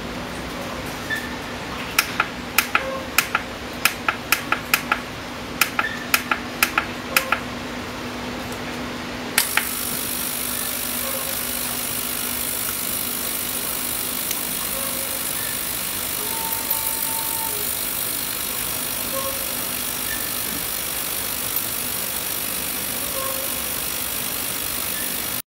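A quick series of sharp clicks over a low hum. About nine seconds in, an ultrasonic cleaner switches on and runs with a steady high hiss, which cuts off abruptly at the end.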